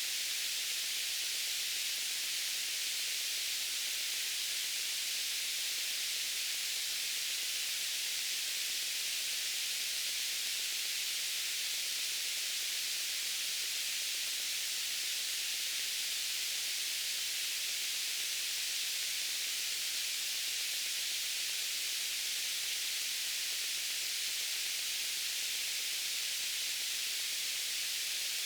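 Steady white noise: an even, unchanging hiss with most of its energy in the upper range and little low end.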